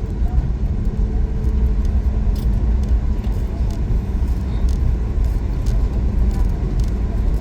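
Cabin noise of a Boeing 737 MAX 8 taxiing: a steady low rumble from its CFM LEAP-1B engines at taxi power, with a few faint ticks.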